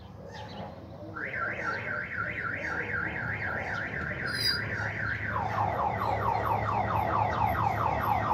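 Car alarm sounding: a quickly repeating rising siren tone, about four a second, that switches about five seconds in to faster, deeper falling sweeps.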